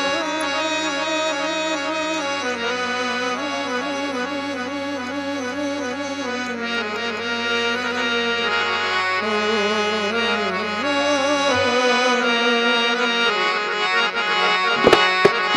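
A free-reed keyboard instrument plays a wavering folk melody over a steady low drone in an instrumental break; the drone stops about three-quarters of the way through, and a few drum strokes come in near the end.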